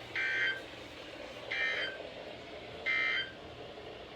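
Three short bursts of Emergency Alert System digital data tones from a NOAA Weather Radio broadcast, about a second and a half apart: the end-of-message code that closes the Required Weekly Test.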